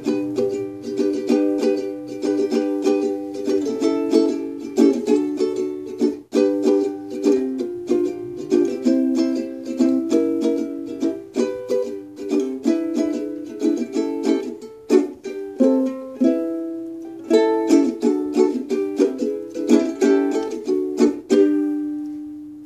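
Ukulele strummed in a steady rhythm of chords, ending on a final chord that rings out and fades away near the end.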